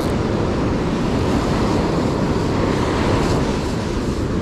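Steady rush of ocean surf on the shore, with wind buffeting the microphone.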